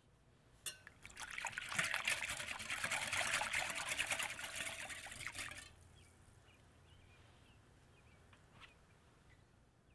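Wire whisk stirring a thin tomato-paste sauce in a glass measuring jug: rapid clinking of the tines against the glass over sloshing liquid, starting about a second in after a single tap and stopping after about five seconds.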